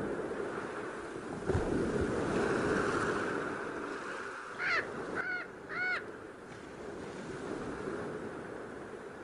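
Sea surf washing steadily on a shore. A bird calls three times in short, harsh calls about five to six seconds in, and there is a brief thump about one and a half seconds in.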